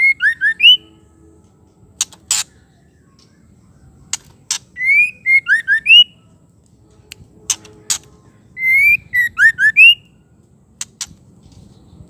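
White-rumped shama singing three short phrases about four seconds apart, each a rising whistle followed by a few quick rising notes. Sharp clicks come in pairs between the phrases.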